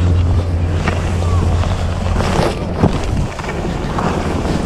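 Wind rushing over a GoPro's microphone during a downhill ski run, a steady low rumble, mixed with the hiss of skis sliding and carving on packed snow.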